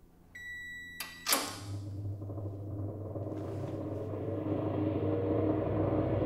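A single electronic beep from an oven's control panel, about half a second long, followed by a click and a sharp, loud hit. A low rumbling horror drone then swells steadily louder.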